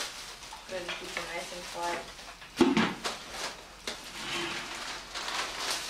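Indistinct talk of several people at a table, with one sudden sharp knock about two and a half seconds in.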